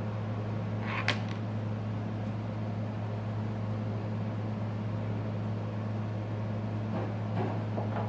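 Steady low electrical or mechanical hum with one sharp click about a second in.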